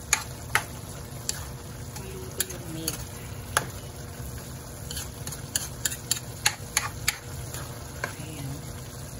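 Sliced pork sizzling in a non-stick wok while a plastic spatula stirs it, with sharp clicks and taps of the spatula against the pan, coming thickest about five to seven seconds in.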